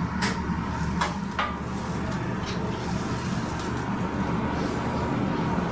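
Metal spatula knocking and scraping on a dosa griddle, a few short clicks in the first second and a half and one more about halfway, over a steady low hum.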